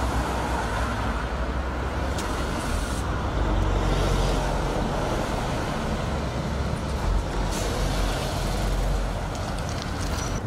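Road traffic noise: a steady rumble of engines and tyres, growing heavier from about three seconds in until near the end.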